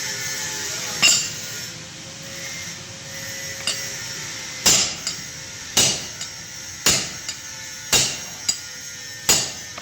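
Repeated sharp knocks, the loud ones coming about once a second in the second half, several followed by a lighter tap, over a steady hum.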